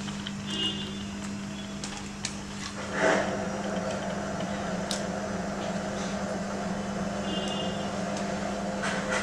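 A steady low hum with a faint hiss, under a few light clicks and a soft knock about three seconds in, as sardines are placed by hand into a pan of simmering curry.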